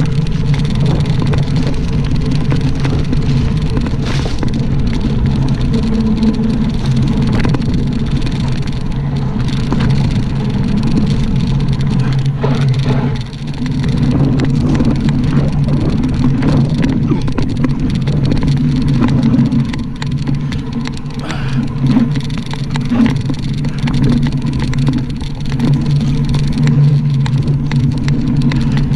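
Mountain bike riding fast down a dirt singletrack: a steady rush of wind on the microphone with the rumble of the tyres and frequent knocks and rattles as the bike bounces over bumps.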